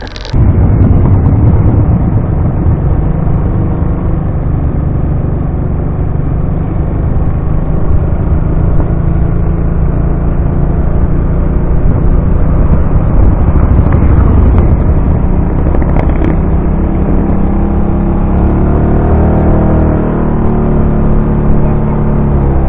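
Motorcycle engine running at low road speed with wind noise, heard loud and close from a camera mounted on the bike; a steady low rumble whose pitch wavers briefly near the end.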